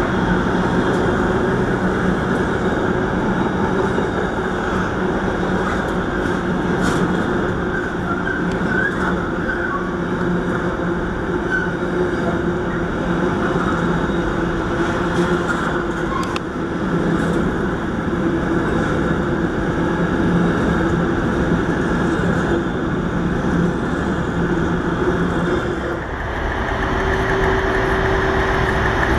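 Intermodal container freight train's wagons rolling past close by: a steady rumble of wheels on rail with a few clicks and brief squeaks. About 26 s in it changes suddenly to a quieter steady hum.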